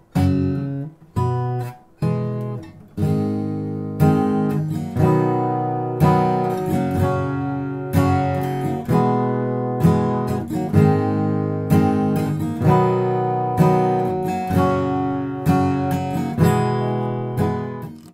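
Background music: acoustic guitar strumming chords, about one strum a second.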